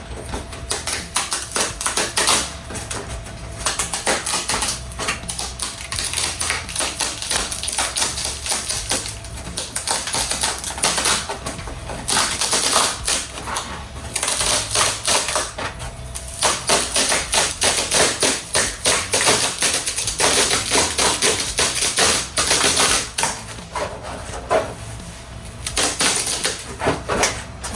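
Old fiberglass laminate being peeled off a surfboard's foam blank: a dense, rapid crackling as the glass tears loose, coming in surges of stronger and weaker crackle.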